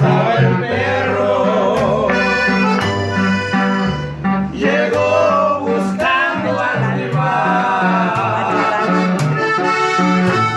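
Accordion music in a Latin American style: an accordion melody over a steady, alternating bass line.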